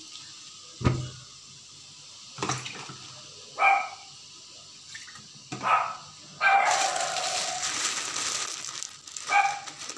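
A dog barking several times in short, separate barks, with a sharp thump about a second in and a few seconds of steady hiss from about six and a half seconds.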